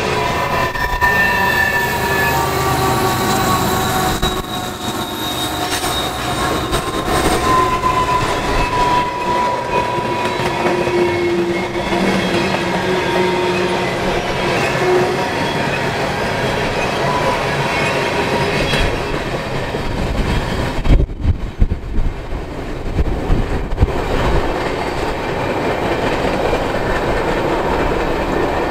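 Long CSX coal train of hopper cars rolling past on curved track, steady rumble and clatter of the wheels. Steel wheels squeal in thin high tones on the curve through the first half. A run of heavier knocks comes about three-quarters through.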